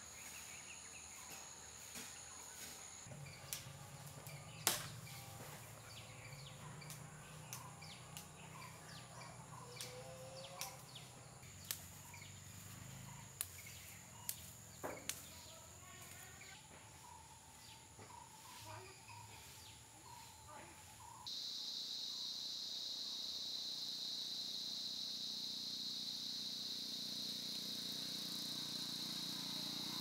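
Quiet rural outdoor ambience with scattered small clicks and snaps and a few faint bird calls. About two-thirds of the way through it switches abruptly to a steady, high-pitched drone of insects such as crickets or cicadas.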